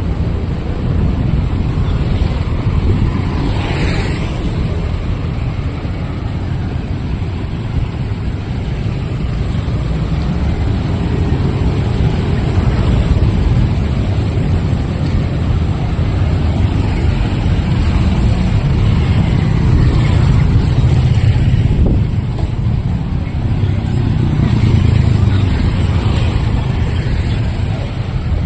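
Street traffic: motor vehicles passing in a steady low rumble, swelling and easing as they go by.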